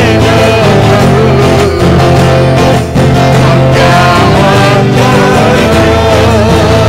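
A man singing an Odia worship song in a strong, steady voice, accompanying himself on a twelve-string acoustic guitar.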